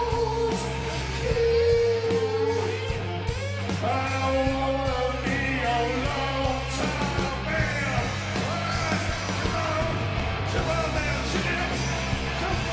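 Live rock band playing, guitars and drums, with yelled, wordless vocals wailing over the music.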